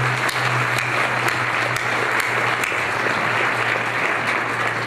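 Audience applauding, a dense steady clapping that begins to thin out at the very end.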